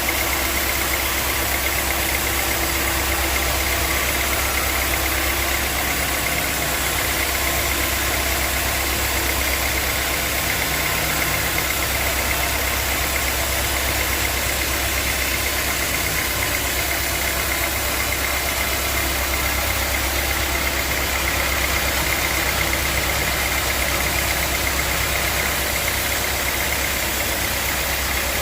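Sawmill machinery running steadily: a continuous low engine hum with a steady high whine over it.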